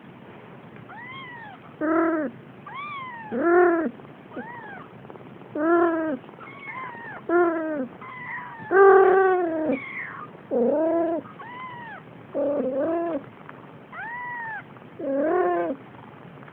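Siamese cat meowing and yowling over and over, about one drawn-out, arching call a second, some loud and some fainter, the loudest about halfway through.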